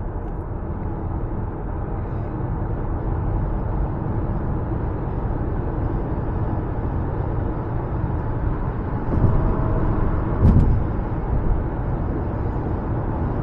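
Steady road and tyre noise inside the cabin of a 2024 Subaru Forester cruising at highway speed, with its 2.5-litre flat-four running at low revs underneath. A brief thump comes about ten seconds in.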